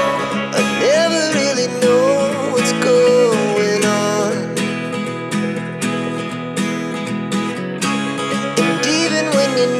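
Background music: an acoustic guitar strumming under a melody line.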